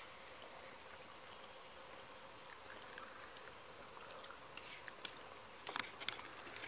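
Quiet outdoor background with a faint steady insect buzz and light clicks of plastic forks on paper plates, with a louder clatter a little before the end.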